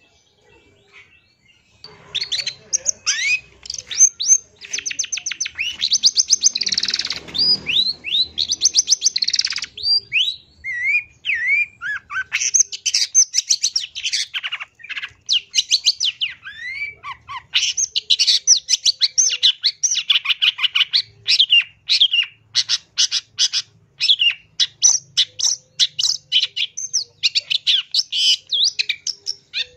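Long-tailed shrike singing: a fast, varied run of chattering notes, rapid trills and short sliding whistles, starting about two seconds in.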